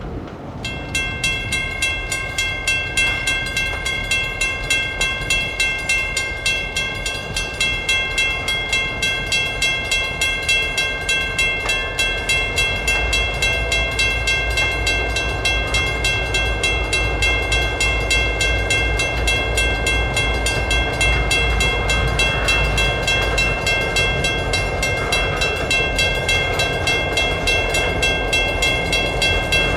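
EMD GP-series diesel locomotive's bell ringing steadily, about one and a half strokes a second, over the locomotive's engine. The engine's low rumble grows heavier about 13 seconds in.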